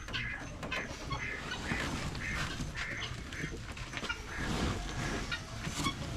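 Backyard chickens calling, a run of short, repeated clucks and squawks from the flock over a background of rustling.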